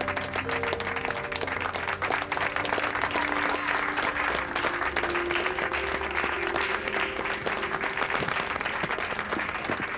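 A small group of people applauding, dense hand clapping that keeps up throughout, with background music of held notes underneath.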